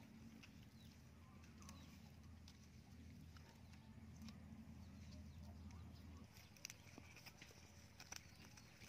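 Near silence: faint outdoor background with a low hum that stops a little after six seconds in, and a few scattered faint clicks and taps.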